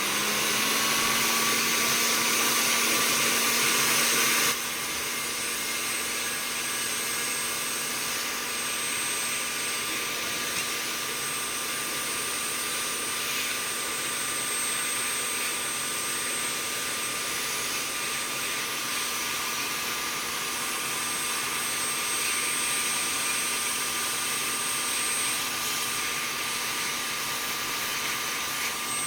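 Electric paint-stripper heat gun with a nozzle attachment blowing hot air: its fan spins up with a rising hum at the start, then runs steadily with a hiss and a steady whine. About four and a half seconds in it gets suddenly quieter and less hissy, then runs evenly until its pitch starts to fall at the very end.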